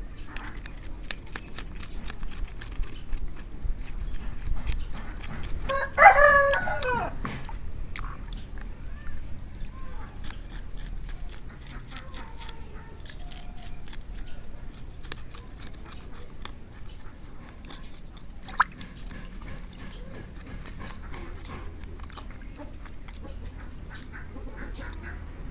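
A knife scraping and cutting a fish, heard as a run of rapid sharp clicks and scrapes. A rooster crows once, loudly, about six seconds in.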